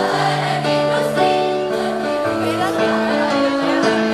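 A mixed choir singing long held chords with instrumental accompaniment.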